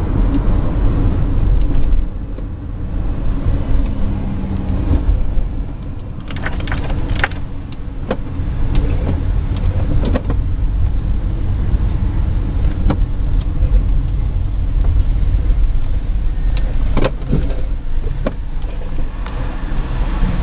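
Car engine and road noise heard from inside the cabin, a steady low rumble as the car drives and slows into traffic. A few short clicks or knocks come through around a third of the way in and again near the end.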